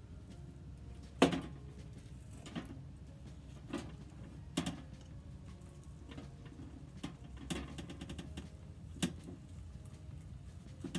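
Kitchen handling sounds while raw chicken is being prepared: a sharp knock about a second in, then half a dozen lighter clicks and knocks spread apart, over a low steady hum.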